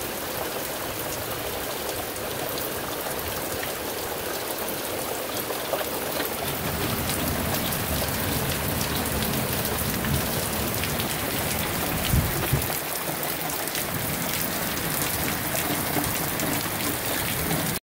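Heavy rain falling: a steady hiss with the patter of drops, a little louder from about six seconds in. A brief low thump about twelve seconds in.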